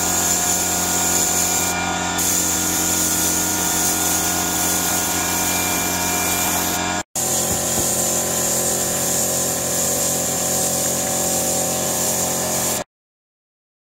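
Pneumatic gravity-feed spray gun hissing steadily as it sprays paint onto a steel tank, over a steady machine hum. The sound breaks off for an instant about seven seconds in and stops abruptly near the end.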